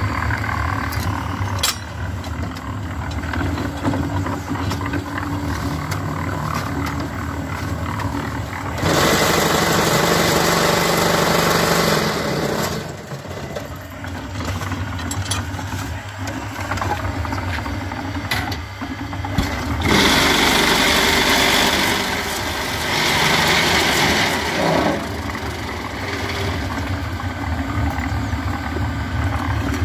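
Drum concrete mixer running with a steady low hum, churning its cement and gravel mix. Two louder noisy stretches of a few seconds each come as the mix is tipped out into wheelbarrows.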